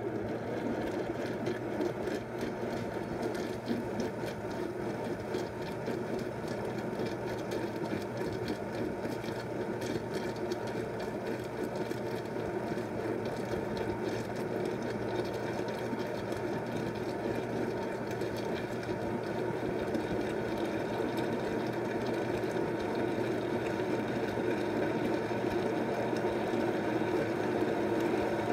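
Yeongyangwang baby-food porridge maker's blender blade motor running steadily, grinding rice and water into porridge.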